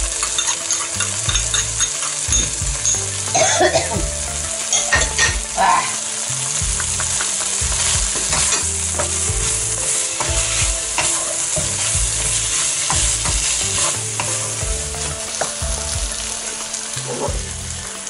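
Chicken, yardlong beans and red curry paste sizzling in a hot nonstick pan while being stirred, a steady frying hiss with the stirring utensil scraping and tapping against the pan.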